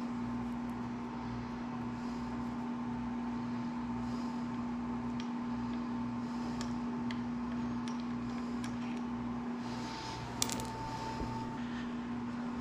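Steady mechanical hum throughout, with a few light metallic clicks from hand tools and parts as a motorcycle's front brake caliper is unbolted and worked loose, and one sharp click about ten seconds in.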